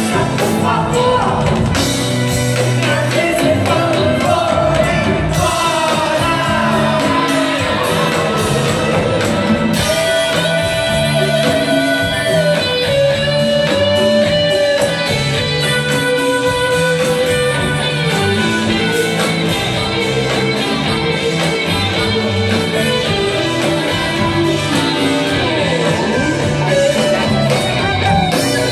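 Rock band playing live: lead vocals with held sung notes over electric guitars, drums and keyboards, amplified through a PA in a large hall.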